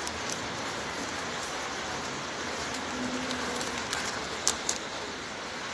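Steady, even background hiss, with two sharp clicks in quick succession about three quarters of the way through.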